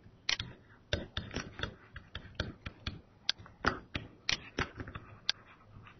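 Stylus tapping and clicking on a tablet computer's screen during handwriting: a string of small, irregular clicks, several a second.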